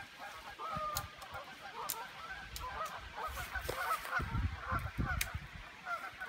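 A flock of geese honking, many short overlapping honks going on all the time, with a few low thuds around four to five seconds in.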